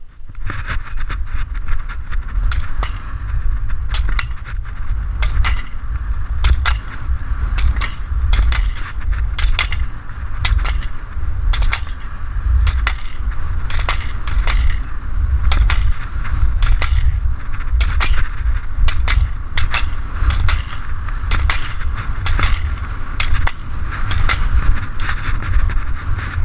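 Skier running a slalom course: skis carving and scraping on snow, with a sharp knock about every two-thirds of a second as the slalom gate poles are struck. Heavy wind rumble on the microphone underneath.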